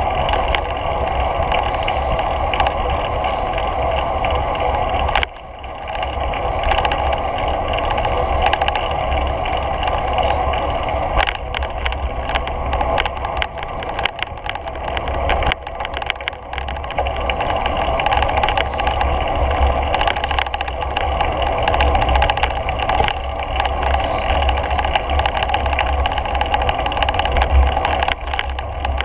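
Steady rushing wind and rolling rumble on a GoPro's microphone as it travels along a paved path, fluttering at the low end. It dips briefly about five seconds in.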